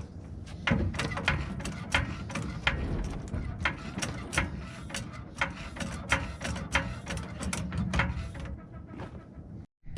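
Metallic ratcheting clicks from a hand-worked ratchet mechanism, several irregular strokes a second, over a steady low rumble.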